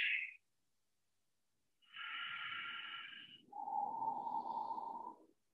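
Ujjayi pranayama breathing, a slow breath drawn through a narrowed throat that makes an ocean-like hiss. There are two breaths, one about two seconds in and a second, lower-pitched one right after it.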